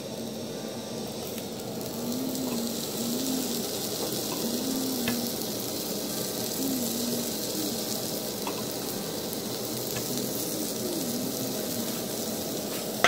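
Thick onion slices sizzling steadily in a hot frying pan in the fat left from frying beef patties, as they are laid in one by one; the sizzle grows a little louder about two seconds in.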